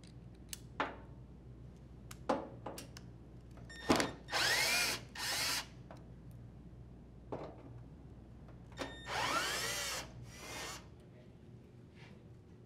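Cordless drill driver backing out two pan head screws from a dryer panel in two short runs about five seconds apart, the motor's whine rising at the start of each run. Small clicks and taps of handling the bit and screws fall in between.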